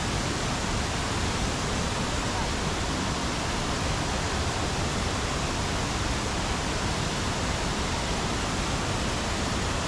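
Waterfall rushing, a steady, even noise of falling water that does not change.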